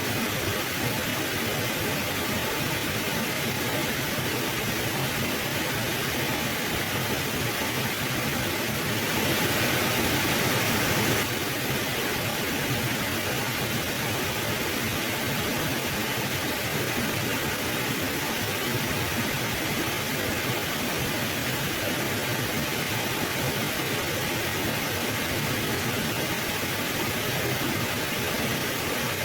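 Mountain river flowing, a steady rush of water. It swells briefly and more brightly about nine seconds in for a couple of seconds, then settles back.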